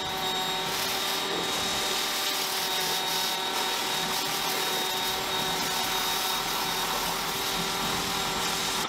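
A Greenworks 1700 PSI electric pressure washer running steadily with a constant motor whine, its spray hissing as it rinses foam off a car.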